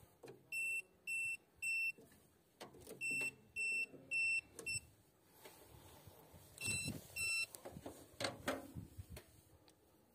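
Handheld voltage tester pen beeping in short, clear electronic beeps about half a second apart, in groups of three, three, one and two, as its tip is touched to breaker terminals: the beeps signal that it senses voltage there. Faint handling clicks between the groups.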